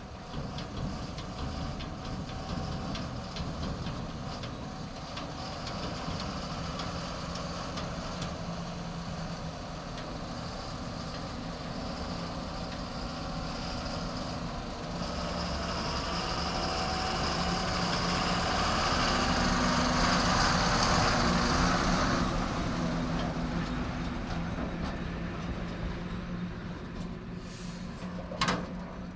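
Heavy dump truck's diesel engine running as the truck drives around, growing louder as it comes close past about two-thirds of the way through and then fading as it pulls away. A single sharp knock near the end.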